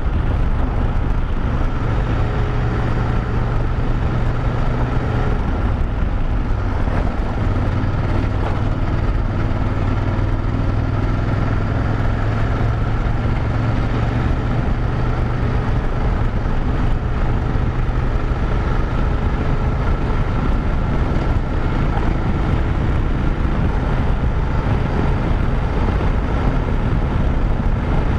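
BMW F850GS Adventure's parallel-twin engine running steadily at cruising speed on a dirt road, under a continuous rush of wind and road noise.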